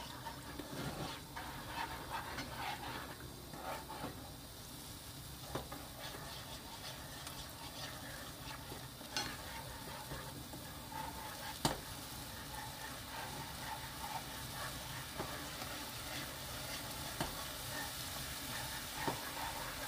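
Wooden spatula stirring a soy-sauce seasoning sauce in a nonstick wok as it heats, scraping and tapping against the pan, with a sizzle that grows toward the end as the sauce comes up to a bubbling boil. One sharp tap on the pan about twelve seconds in.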